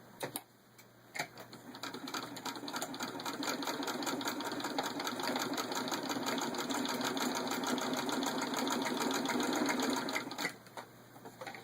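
1920 Singer 66-1 sewing machine turned by a hand crank, stitching through six layers of denim: after a couple of clicks it builds into a rapid, even clatter that runs for about nine seconds and stops near the end.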